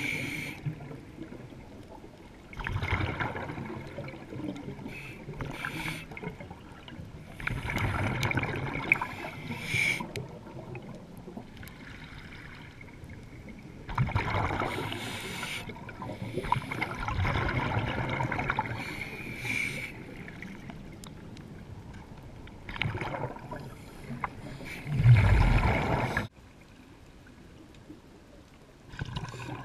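Scuba diver breathing underwater through a regulator: a gurgling rush of exhaled bubbles every four to six seconds, the loudest near the end, with quieter water noise between.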